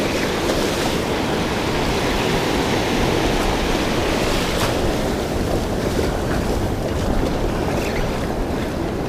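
Ocean surf washing in and out around the wader's legs at the water's edge, a steady rush of breaking waves and foam, with wind buffeting the microphone.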